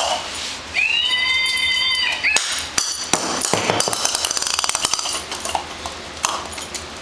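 Babble Ball talking dog toy playing one of its recorded sounds, a single held tone lasting about a second and a half starting nearly a second in. It is followed by rapid clicking and clattering as the hard plastic ball is knocked about on a concrete floor.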